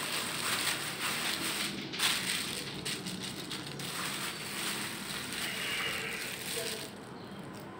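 Thin plastic bag rustling and crinkling as it is pulled over and wrapped around a tray of bean sprouts, dying down about seven seconds in.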